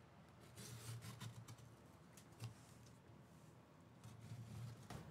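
Near silence: faint scratches and clicks from hands handling a taped cardboard shipping case, over a faint low hum.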